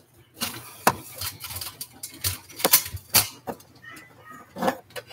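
Irregular clicks and knocks of kitchen dishes and utensils being handled on a counter, a quick run of them for the first few seconds, then a pause and a couple more near the end.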